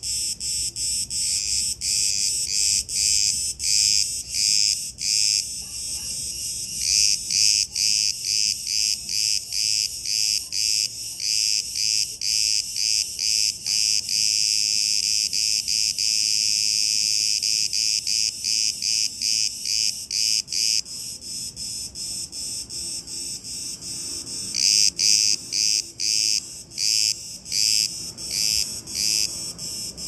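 A chorus of cicadas singing in a fast pulsing rhythm of high, shrill chirps, merging into a steady buzz partway through and swelling louder again near the end.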